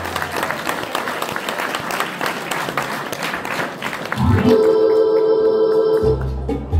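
Audience applauding. About four seconds in, a Hammond organ starts playing again with held chords over a bass line.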